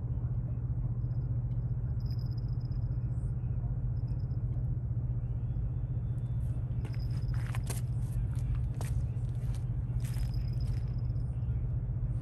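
Steady low rumble throughout, with a small rod-tip bite bell jingling in two short bursts about seven and ten seconds in. The angler takes the bell for a conger mouthing the bait.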